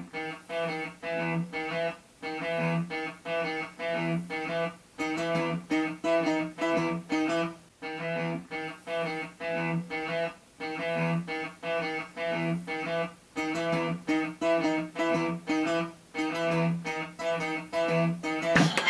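Background music: a guitar picking a steady, repeating pattern of plucked notes.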